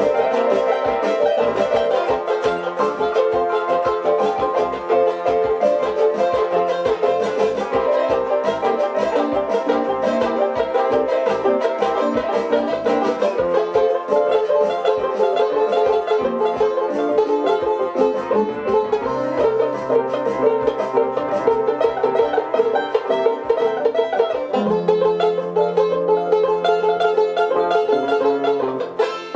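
Resonator banjo strummed rapidly over an electronic keyboard accompaniment, with held low keyboard bass notes in the second half. The tune winds down just before the end.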